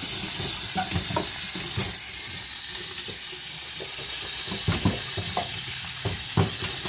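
Tap water running into a stainless steel sink while hands knead and scrub wet barometer earthstar mushrooms inside a plastic mesh bag, with irregular short rubbing and knocking sounds. This is the mushrooms being washed to rub the soil off them.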